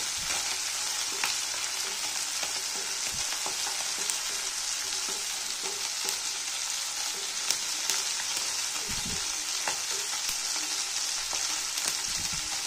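Mustard seeds and dried red chillies tempering (phoron) in hot oil in a non-stick wok with fried puti fish: a steady sizzle with scattered sharp clicks, as a wooden spatula stirs through the pan.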